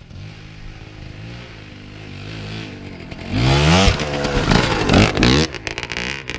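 Enduro dirt-bike engine running on light throttle, then revving hard about halfway through, its pitch rising and falling in several quick surges.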